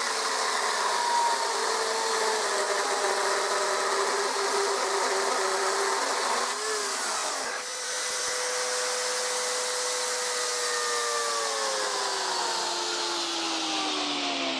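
Chainsaw running while its bar cuts into a block of wood, a steady motor whine with a brief dip about halfway through. Over the last few seconds the motor's pitch sinks gradually.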